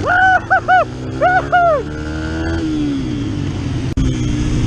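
Dirt bike engine running on the flat track, its pitch climbing slowly as it revs, then dropping as the throttle eases off about halfway through. Over it in the first two seconds, short high sing-song yelps from the rider.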